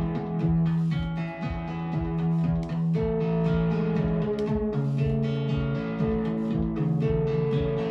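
A 2hp Pluck Eurorack voice plays a looping sequence of short plucked synth notes, quantised to a scale and run through a Moog Sub 25 used as a filter and a Strymon Big Sky reverb. About three seconds in, the melody changes as notes are added to or taken out of the scale.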